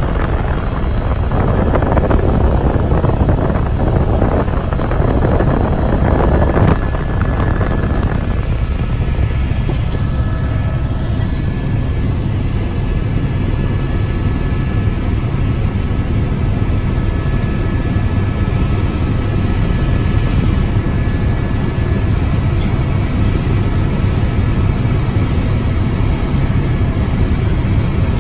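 Tour helicopter's turbine engine and rotor droning steadily inside the cabin, with a few steady whining tones above the drone. A heavier rushing noise over the first eight seconds or so eases off, with a brief knock about seven seconds in.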